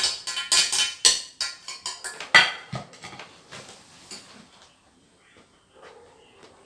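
Utensils clinking and knocking against cookware: a quick run of sharp clinks in the first three seconds, the loudest about two seconds in, then fainter, sparser ones.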